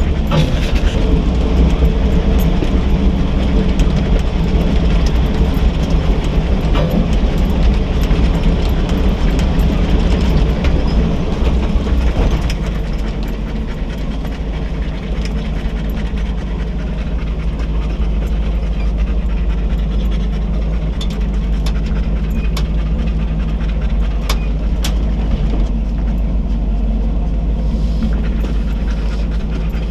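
A 4x4 truck's engine running steadily in low gear, heard from inside the cab, with the body and loose gear clattering and knocking as it crawls over a rocky trail. About twelve seconds in the engine note drops lower and a little quieter.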